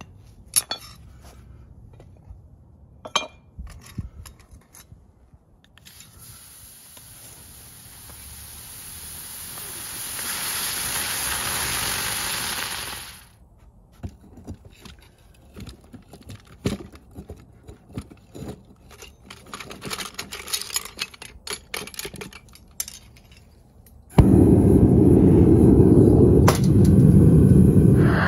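Short clinks and scrapes of scrap aluminum pieces being dropped into a furnace crucible, then, about four seconds before the end, a gas-fired melting furnace's burner starts with a sudden, loud, steady roar. Earlier, a hiss swells for several seconds and cuts off suddenly.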